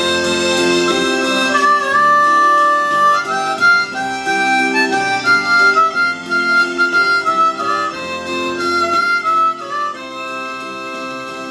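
Harmonica played into a microphone: a melody of held and changing notes, a few of them bent, growing quieter near the end.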